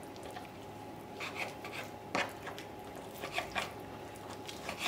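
Kitchen knife cutting and scraping through raw chicken thigh skin on a plastic cutting board: a few soft, short scrapes and taps about a second apart, over a faint steady hum.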